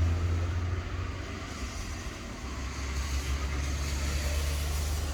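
Rain falling in an even hiss over a deep, steady rumble that eases about a second and a half in, swells again, and drops away near the end.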